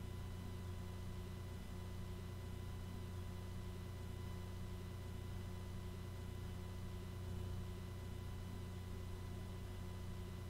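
Faint steady electrical hum with a few high steady tones over low hiss: the recording's background noise.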